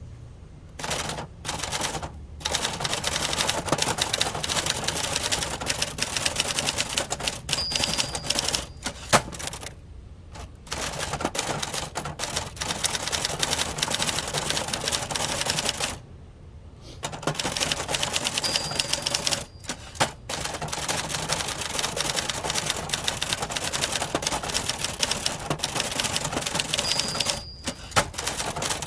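1970s Adler Gabriele 25 manual typewriter being typed on in fast, steady runs of key and typebar strikes, with short pauses between runs. A brief high ding, typical of the margin bell near the end of a line, sounds three times.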